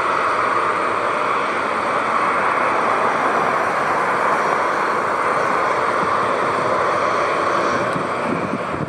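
Narrow-body jet airliner's engines, a loud steady rush that eases a little near the end.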